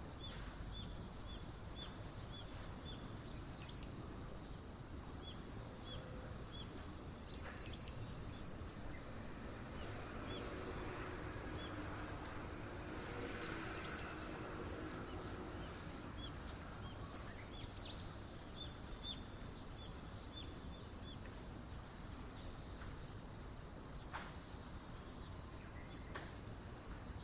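A dense insect chorus, crickets or similar, with a continuous very high-pitched trill that never lets up. Twice, a run of soft, evenly spaced chirps sits at a lower pitch beneath it.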